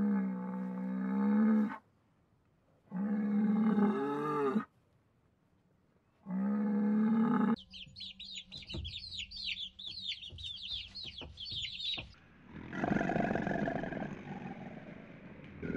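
A run of animal calls: three drawn-out, wavering calls a second or so apart, then about four seconds of rapid high-pitched chirping with light clicks, then a coarser call near the end.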